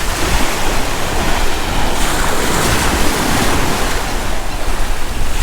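Surf washing on a sandy beach, with wind buffeting the microphone in a heavy, steady rumble. The wash swells for a moment about two seconds in.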